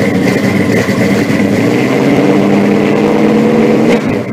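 Loud car engine running steadily.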